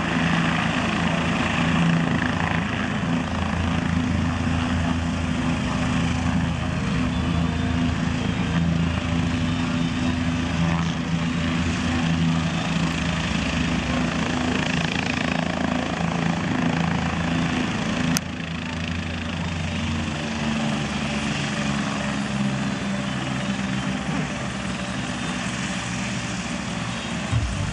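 Helicopter running, its rotor beating rapidly over a steady engine tone; the sound drops a little in level suddenly about two-thirds of the way through.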